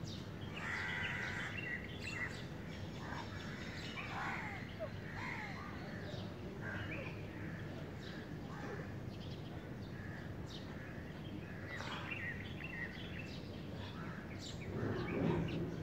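Birds chirping and calling here and there over a steady low background rumble.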